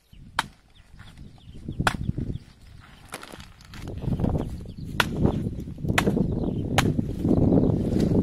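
Machete chopping through a banana plant's soft stalk and leaf stems: six sharp chops, irregularly about a second apart, over a low rustling of leaves and handling that grows louder in the second half.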